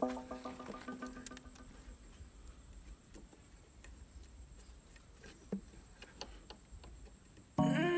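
Faint scattered clicks and light knocks of hands handling wiring and a metal bracket under a motorcycle seat. Background music fades out in the first second or so and comes back loudly just before the end.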